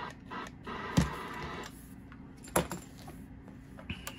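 Sharp clicks and knocks as the front-panel buttons and microphone plug of a Uniden Bearcat 680 CB radio are handled, over a faint steady hum. Near the end a steady hiss comes on: the radio's receive static returning.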